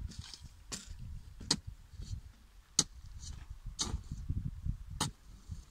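Sharp knocks about once a second, five in all: a hoe striking dry, stony soil as it is dug. Under them, a low rumble.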